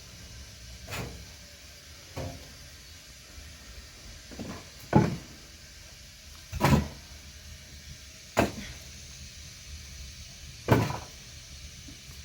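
A series of about seven separate knocks or thuds at uneven intervals, a second or two apart, the loudest about five seconds in, over a low steady hiss.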